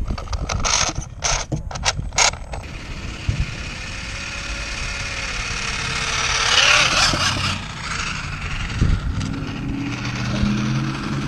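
A 3D-printed RC car with a brushless motor driving, its failing PLA differential giving a rapid run of sharp clicks and crunches in the first couple of seconds. A rush of drive noise follows, loudest about six to seven seconds in. The clicking and crunching is the sign of the diff gears breaking up.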